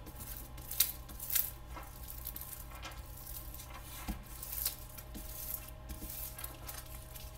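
A hand rubbing over the clear plastic film of a Xyron sticker-maker label strip, a series of soft, hissy swishing strokes: the rub step of 'rub and peel' that presses the labels onto their adhesive.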